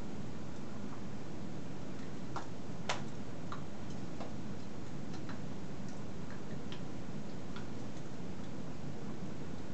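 Steady background hiss and hum with faint, irregular small clicks and taps from a person signing without speaking. One sharper click comes about three seconds in.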